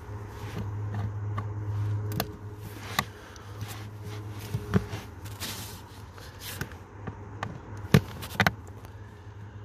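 Screwdriver turning a screw in a hard plastic footwell trim panel: scattered clicks and scrapes of the tip against the screw and plastic, the sharpest one just before the end. A steady low hum is strong for the first two seconds, then fainter.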